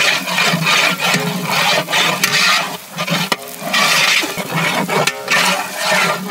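Ladle stirring and scraping onions and ground chilli paste frying in oil in a pot, in repeated strokes over a steady sizzle.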